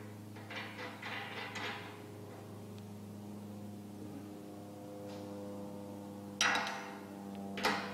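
Bolts and a wrench knocking against a steel drill-rig mast while the mast bolts are fitted: light metallic rattles about a second in, then two sharper clanks near the end, over a steady electrical hum.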